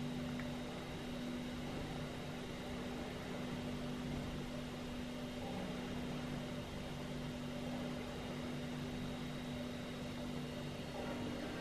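Room tone: a steady low hum under a faint, even hiss.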